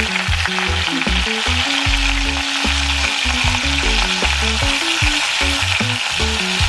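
A pork roast frying in hot oil in a Dutch pot, sizzling steadily as it browns.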